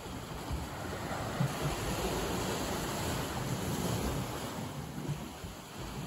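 Gentle sea waves breaking and washing up a small sandy beach, the surf swelling about a second in, staying loudest through the middle and easing near the end.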